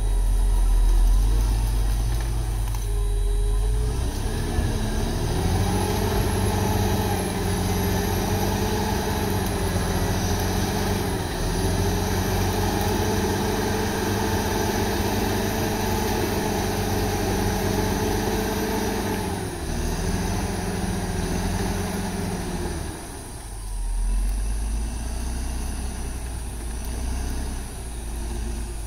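Crawler bulldozer's diesel engine working through brush: a low rumble whose pitch rises about four seconds in, holds high with a couple of brief dips, then drops back to a low rumble a little after twenty seconds.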